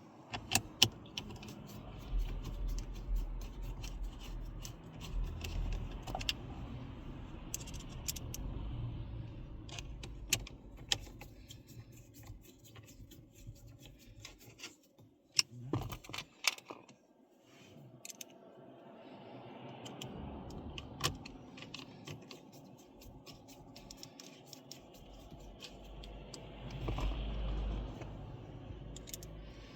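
Scattered metallic clicks, scrapes and rattles of a car stereo head unit being seated in the dashboard and its four mounting screws driven in with a Torx screwdriver.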